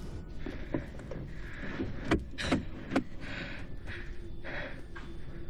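Hushed, nervous breathing of people hiding, in soft puffs, with three sharp taps about two to three seconds in, over a faint low hum.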